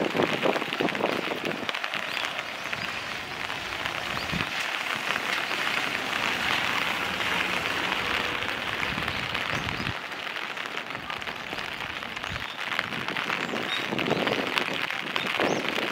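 Steady rain falling and pattering on surfaces: a continuous hiss sprinkled with many small drop ticks.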